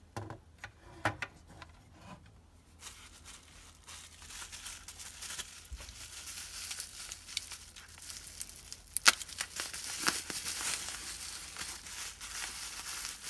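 Plastic packing wrap crinkling and tearing as it is pulled off a piece by hand. A few light clicks come first, then steady crinkling from about three seconds in, with a couple of sharper snaps past the middle.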